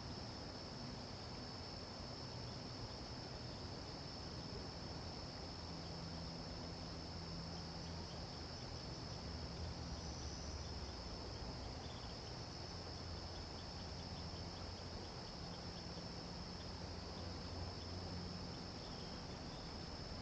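Insects trilling in a steady, unbroken, high-pitched chorus over a low, uneven rumble.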